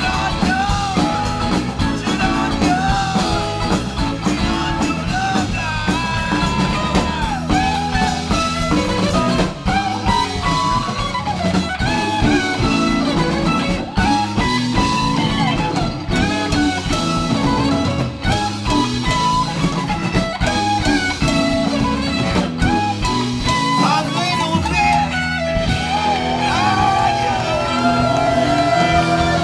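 Live blues-rock band playing: electric guitars and drum kit, with a lead line of sliding, bent notes over the band.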